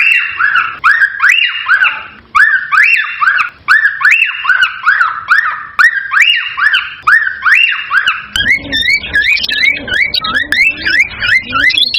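Cockatiel whistling a fast run of repeated rising-and-falling notes, about three a second. A little past two-thirds of the way through the song changes to quicker, wavering notes with a low hum underneath.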